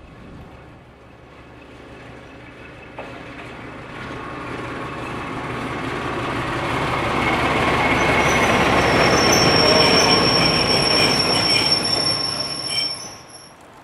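British Railways Class 03 diesel shunter, with its Gardner eight-cylinder engine, drawing a train of coaches past at low speed, growing louder as it comes close. From about eight seconds in a high, steady squeal from the train joins the engine and wheel noise, and the whole sound drops away suddenly near the end.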